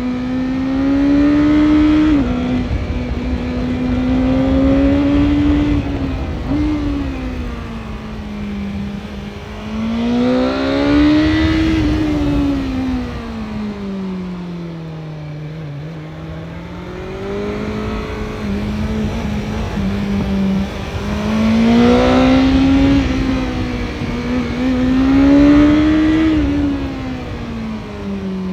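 2022 BMW S1000R inline-four engine under way, heard from on the bike. The revs climb and fall repeatedly as the throttle is worked, with quick drops in pitch about two and six seconds in, like gear changes.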